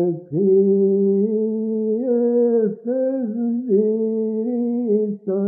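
A solo male voice singing the top line of a Georgian church chant, one syllable per slow, held note. The pitch steps up over the first few notes and then comes back down, with short breaks between some notes.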